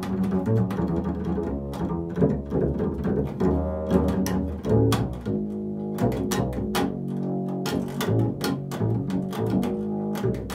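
Upright double bass played pizzicato, improvised: a continuous run of plucked low notes, several a second, each with a sharp attack.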